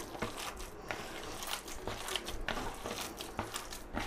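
A hand squeezing and kneading raw minced beef mixed with chopped onion, tomato and spices in a plastic bowl, making irregular wet squishing strokes.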